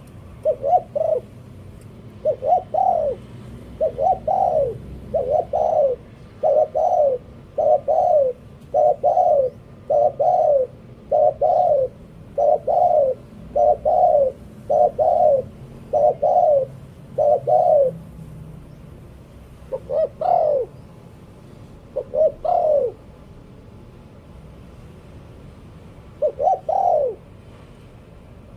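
Spotted dove cooing in the 'liu tan' cooing style: short, low coo phrases repeated about once a second, then slowing to a few spaced-out phrases after about eighteen seconds, with a pause before the last one.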